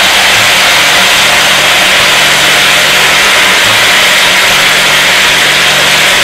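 Boiled, pressed taro (arbi) pieces deep-frying in hot oil, sizzling loudly and steadily as the oil bubbles around them, with a faint low hum underneath.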